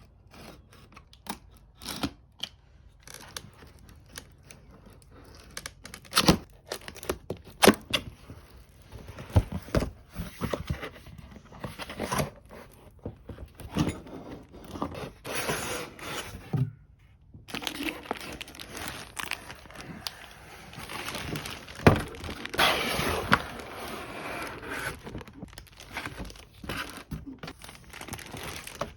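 Handling noises: irregular crinkling and tearing, like packaging being torn open and handled, with scattered sharp knocks and clicks.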